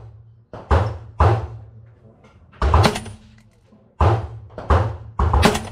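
Suppressed FN SCAR 16S rifle firing single 5.56 mm shots in an irregular string, about seven in all. Each is a sharp report with a short decaying tail.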